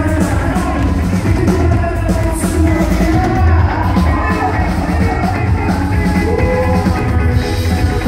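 Live band playing, with a drum kit keeping a steady beat under acoustic and electric guitars.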